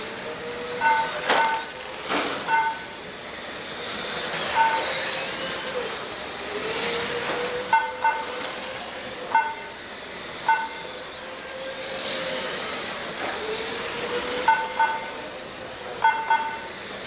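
Several radio-controlled racing cars running on a track, their motors whining high and rising and falling as they speed up and slow down. Short electronic beeps sound every second or so at irregular intervals, with a couple of sharp knocks about one and two seconds in.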